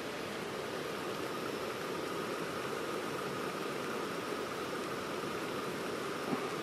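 Water at a rolling boil in a small pot on a canister gas stove: a steady hissing rush of the burner with bubbling, and a faint click near the end.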